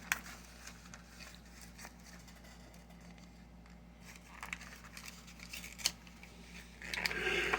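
Plastic blister packaging of a toy action figure being worked open: a few sharp clicks and crackles, with a louder rustle near the end.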